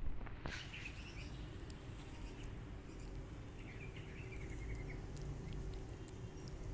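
Cats crunching dry kibble from a plate, small scattered clicks over a low rumble, with faint bird chirps about half a second in and again around the middle.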